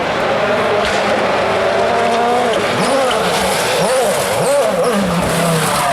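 A World Rally Car's 1.6-litre turbocharged four-cylinder engine running at high revs on a rally stage. The pitch holds fairly steady for about two and a half seconds, then the revs drop and climb again several times.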